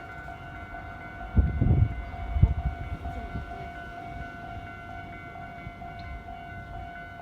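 Japanese railway level-crossing warning alarm sounding steadily, its electronic tone repeating evenly. A few low thumps about one and a half to two and a half seconds in are the loudest sounds.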